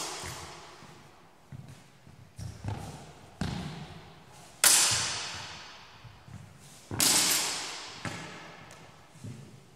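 Steel feder longsword blades clashing, with two loud ringing strikes about two and a half seconds apart that each die away over a couple of seconds, echoing in a large hall. Smaller knocks and stepping thumps on the hall floor come between them.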